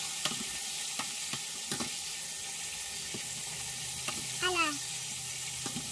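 Chicken wings deep-frying in hot oil: a steady sizzle, with a few sharp clicks scattered through it.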